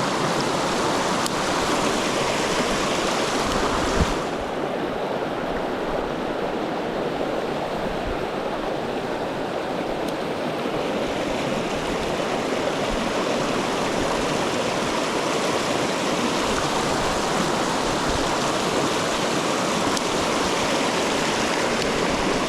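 Mountain stream rushing steadily over rocks. About four seconds in there is a small knock, after which the high hiss of the water softens for several seconds.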